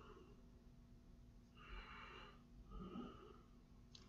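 Near silence: faint room tone with two soft breaths, one just before halfway and one about three quarters of the way through.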